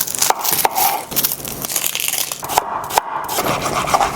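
Knife work on a wooden cutting board: a few sharp knocks, then about two seconds of sawing and scraping, then more knocks near the end.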